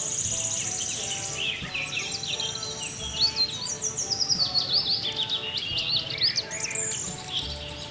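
Birds singing: a fast high trill at the start, then many chirps and a run of quick falling chirps through the middle. Underneath is background music of soft held notes.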